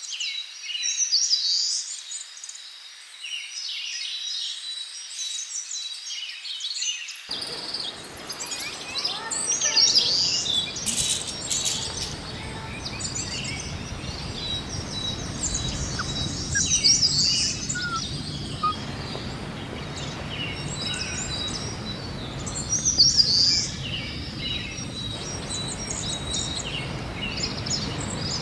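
Several songbirds chirping and singing in a busy chorus of short, high calls. From about seven seconds in, a low, steady outdoor rumble joins beneath them.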